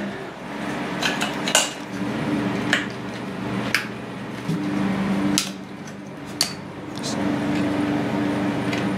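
Light clicks and knocks of plastic wiring connectors and loom being handled and pushed into place against a metal frame, about five sharp clicks in all, with a low steady hum behind them.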